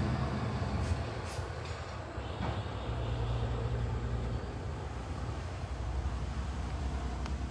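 Low, steady rumble of a passing motor vehicle's engine, swelling and easing slightly.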